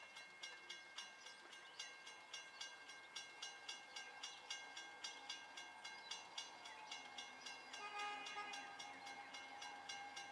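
Faint, distant train horn sounding a held chord from about three-quarters of the way in, as a CSX train approaches. Under it runs a steady rhythmic ringing of about two to three strikes a second.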